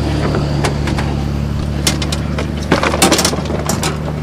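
Motor vehicle engine idling with a steady low hum, with several knocks and clatters of gear being handled, most of them about three seconds in.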